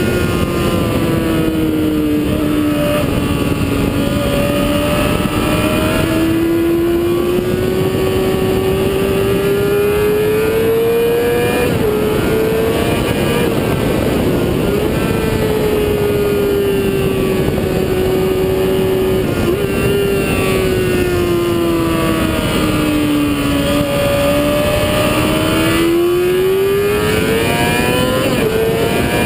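Motorcycle engine at speed on a race track, its note sinking over the first few seconds, climbing slowly until about a third of the way in, holding, then dipping and rising again near the end as the bike slows for and drives out of corners. Heavy wind rush on the microphone runs under the engine throughout.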